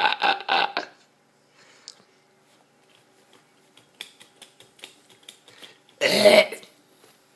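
A baby making odd vocal noises: a run of quick, rhythmic voiced pulses that stops about a second in, then faint clicks, and a short loud vocal burst about six seconds in.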